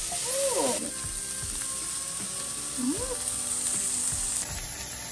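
Diced pork sizzling in a nonstick frying pan, the hiss strongest in the first second and then settling lower, with background music playing over it.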